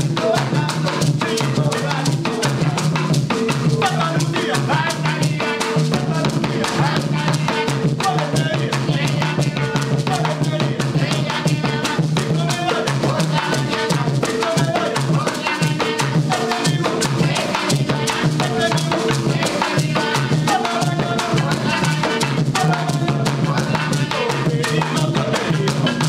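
Afro-Esmeraldan marimba music: wooden marimba playing over drums that beat a steady, dense rhythm.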